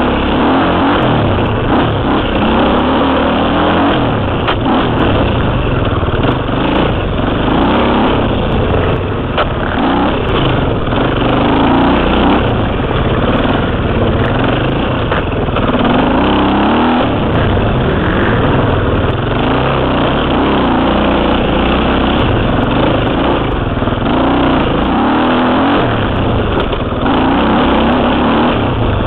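KTM 300 two-stroke enduro motorcycle engine heard up close from a helmet camera, its pitch rising and falling over and over as the throttle is opened and closed on the trail.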